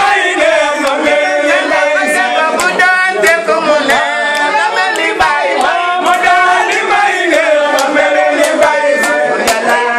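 A group of men singing together in unison, a loud, continuous group chant. A few sharp clicks sound here and there over the singing.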